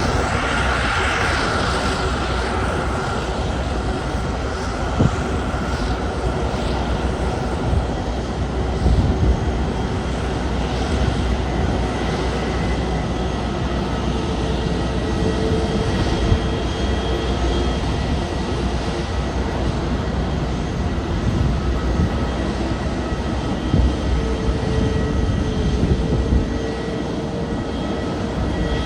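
Aircraft engines running: a steady rumble and hiss with several high whining tones. There are a few brief thumps.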